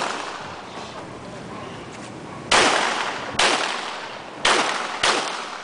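Glock 17 9mm pistol firing four single shots, each a sharp crack with a short ringing tail, the first about two and a half seconds in and the rest following at irregular intervals of under a second each.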